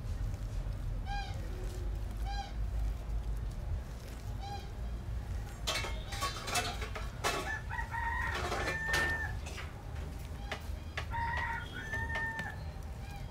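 Chickens calling: a string of short clucks in the first few seconds, then longer drawn-out calls about halfway through and again near the end, over a low steady rumble.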